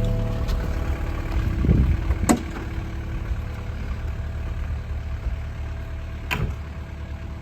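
Diesel engine of a JCB 55Z-1 midi excavator running at a steady idle, with two sharp metallic knocks, about two seconds in and again near the end.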